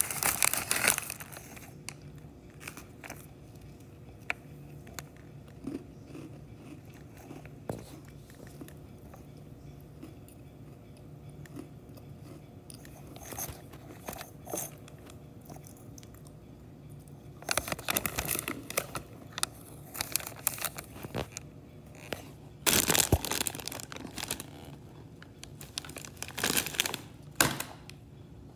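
Oreo Double Stuf package crinkling as it is opened, then long quieter stretches of a child chewing the cookies with small crunches. Further loud bursts of packaging crinkle about two-thirds of the way through and again near the end.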